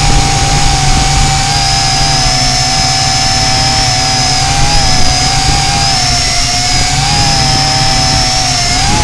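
Tarantula X6 quadcopter's motors and propellers whining steadily, their pitch wavering up and down as the throttle works against the gusts, under heavy wind rumble on the microphone.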